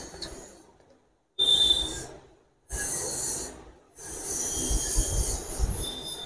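Chicken kebab gravy sizzling and bubbling in a pan just after cream has been poured in. The sound comes in short stretches broken by brief silences, with a thin high squeal twice.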